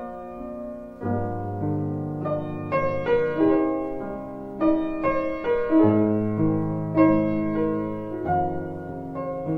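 Slow, gentle piano music: chords struck about once a second, each ringing on and fading.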